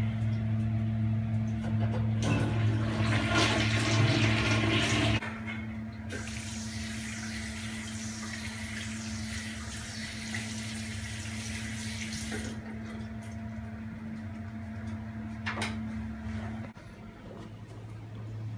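Water running in a bathroom: a loud rush of water about two seconds in, then a steadier hiss of running water for about six seconds that cuts off. A steady low hum sounds underneath and stops shortly before the end.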